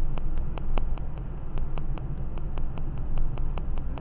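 Steady engine and tyre rumble heard inside a moving car's cabin, strongest in the low bass, with a faint rapid ticking of about five clicks a second running through it.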